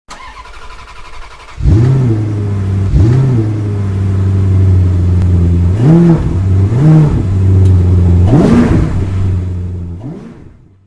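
Car engine catching about one and a half seconds in, then idling and blipped up and back down about five times, the last blip the highest, before fading out near the end.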